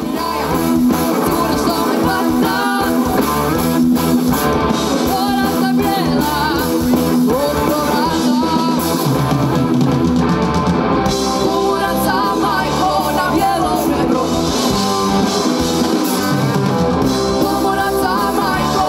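Rock band playing live: a woman singing over electric guitars and a drum kit.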